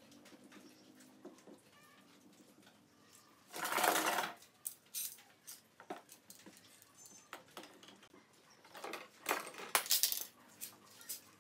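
Bar clamps being handled and tightened on a wooden stool frame: scattered metallic clicks and clinks, with a short loud clatter about four seconds in and two more near the end.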